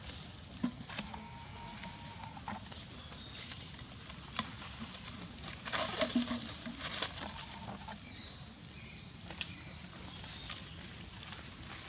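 Monkeys moving and feeding among foliage: rustling with scattered sharp snaps and clicks, loudest about six to seven seconds in, and a few brief high chirps.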